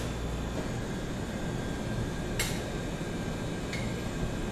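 Steady mechanical hum of shop equipment, with a sharp click about two and a half seconds in and a fainter click near the end.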